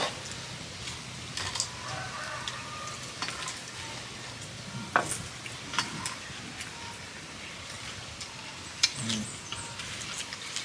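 Sounds of eating by hand from shared dishes: scattered light clicks and taps of dishes and utensils and soft crackle of grilled fish being pulled apart, with a few sharper clicks about halfway through and near the end.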